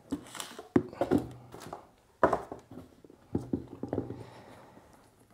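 Leather boots handled and set down on a marble tabletop: a few sharp knocks, the loudest about two seconds in, with quieter handling noise between.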